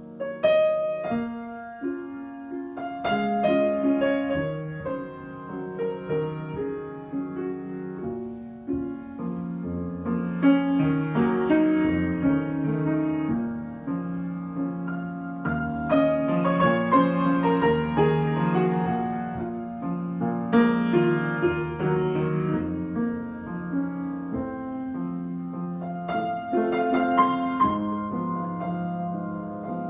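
Solo piano improvisation: struck chords and melody notes ringing on, with a new phrase starting with firm strikes about half a second in and louder clusters of notes in the middle and near the end.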